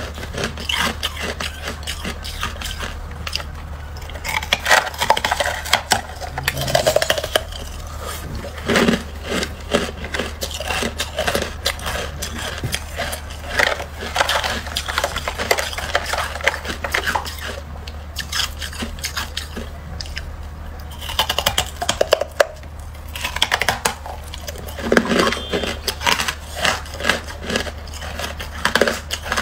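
Freezer frost crunching and crackling as it is bitten and chewed, with scraping and rustling as fingers break off chunks of frost in a plastic tub. A steady low hum runs underneath.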